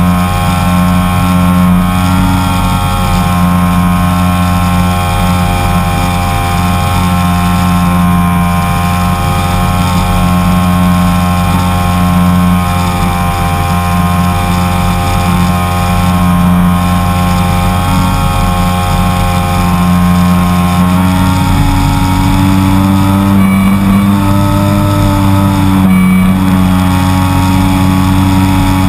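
Electric motor and propeller of a HobbyZone Super Cub RC plane, heard from a camera on the airframe, running steadily under power in flight. The pitch steps up slightly about two-thirds of the way in as the throttle changes.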